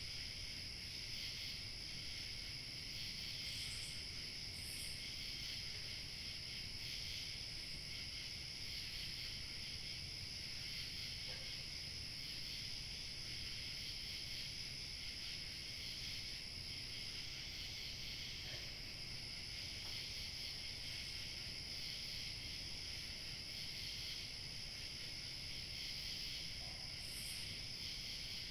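A chorus of crickets chirping without a break, layered in several pitches, over a faint low rush of outdoor noise. A few short high chirps from single insects stand out about four seconds in and again near the end.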